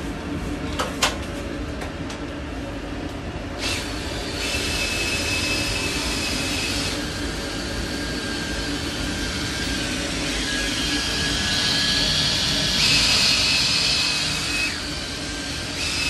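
Duct-cleaning whip on a flexible shaft spinning inside a sheet-metal ceiling air duct: a steady rushing hiss with a high whine that shifts in pitch several times as the shaft is worked in the duct, and a few knocks against the duct near the start.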